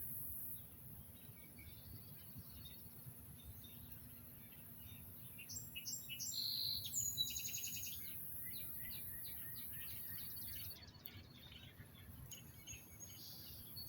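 Songbirds singing faintly in short bursts of rapid high chirps and trills, over a steady low outdoor rumble.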